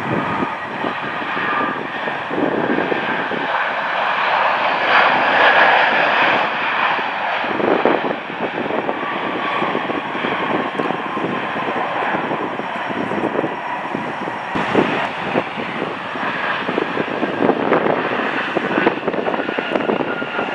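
Jet airliner engines running at high power as the aircraft rolls along the runway: a continuous rush with a steady whine, loudest about five seconds in. The sound shifts about fourteen seconds in, as one airliner gives way to another.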